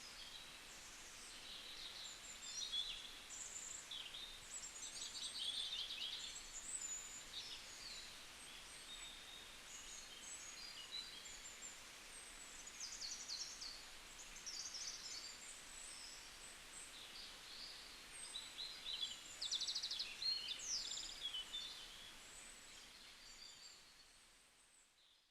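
Small birds chirping and twittering, many short high calls and quick trills over a faint steady hiss, fading out near the end.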